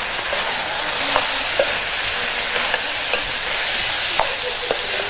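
Vegetables sizzling in a metal wok while a ladle stirs them, with several sharp knocks and scrapes of the ladle against the pan over a steady frying hiss.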